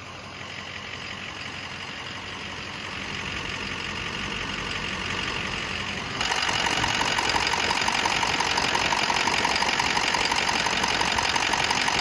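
Pickup truck engine idling steadily with a regular clatter, heard with the hood open. It grows louder and steps up sharply about six seconds in as the sound comes closer to the engine bay.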